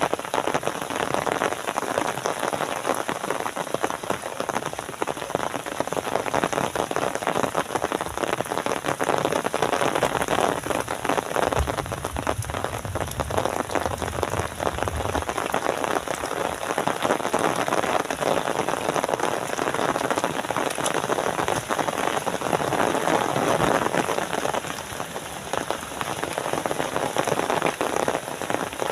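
Steady heavy rain: a dense, even hiss of many small drop impacts. A low rumble comes in for a few seconds near the middle.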